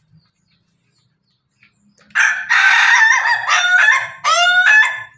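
A rooster crowing once, starting about two seconds in and lasting nearly three seconds, in several parts with a short break before the last.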